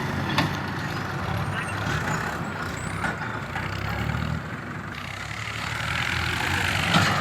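Heavy diesel engine running steadily, with a few sharp knocks over it.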